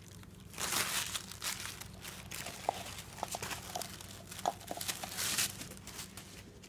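Tissue paper crinkling and rustling in irregular bursts as a dog noses through it, with a scatter of short light clicks.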